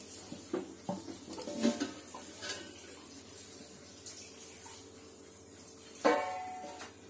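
Stainless-steel lid lifted off a kadhai: light clinks and scrapes of metal on metal in the first couple of seconds, then a louder, briefly ringing metallic clink near the end.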